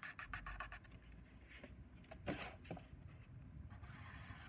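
Soft drawing and handling sounds: a Sharpie marker rubbing along grid paper and a clear plastic protractor sliding and being set down, with a few light clicks. The loudest rub comes a little after the middle.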